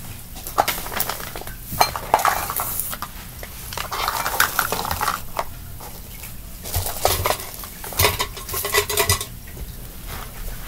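Small plastic Perler beads clicking and rattling against each other and a container, in three clattering bursts.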